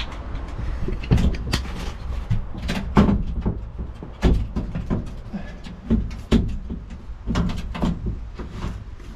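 Irregular knocks and clunks, about a dozen over several seconds, from parts of a Smartcap pickup hardtop being handled and fitted into the truck bed, over a low steady rumble.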